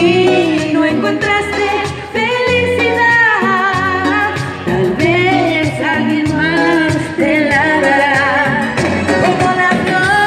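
A woman singing live into a handheld microphone over a karaoke backing track, her voice and the track both coming through the PA.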